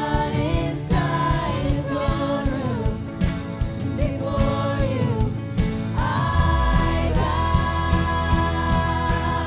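Live worship band playing a slow song, with drum kit and piano under sung vocal lines that hold and slide between notes; a heavier bass comes in about six seconds in.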